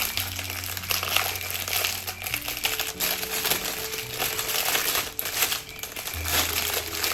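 Packaging crinkling and rustling as a parcel is handled and opened, with dense, irregular crackles throughout.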